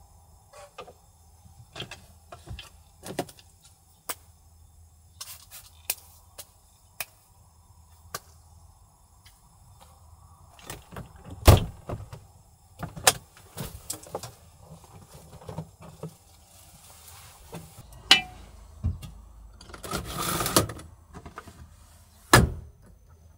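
A series of scattered clicks and knocks, with a few louder thumps about 11 seconds in and near the end, and a brief scraping rustle about 20 seconds in.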